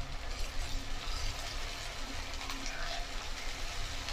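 Chopped onions sizzling steadily in hot oil in a nonstick pan as they are stirred with a spatula.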